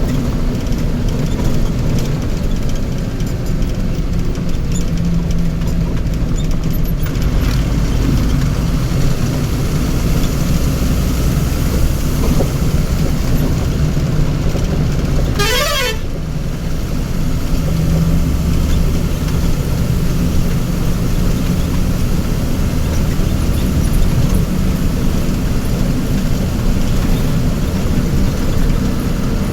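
Vehicle engine running steadily with a low rumble, and one short warbling horn blast about halfway through.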